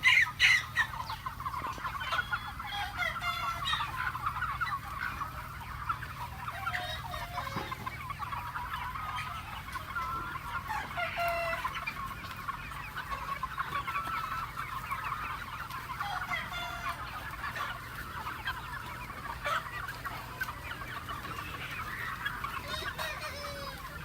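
A flock of free-range chickens clucking, many birds calling over one another without pause, with a few louder calls near the start.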